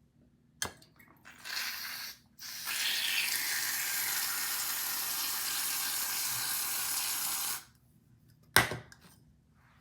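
Aerosol can of curl mousse being dispensed: a short hiss, then a long steady hiss of about five seconds that cuts off suddenly, with a sharp click near the end. The can is taken to be nearly empty.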